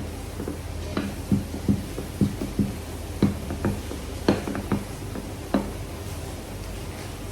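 Rolling pin knocking and rolling on a tabletop while pastry dough is rolled out: a run of about a dozen irregular knocks between about one and five and a half seconds in, over a low steady hum.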